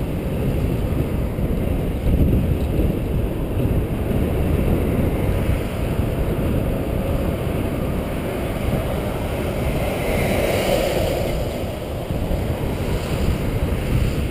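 Wind buffeting the microphone of a helmet-mounted camera on a moving bicycle, a loud, steady low rumble. It swells briefly in the middle range about ten seconds in.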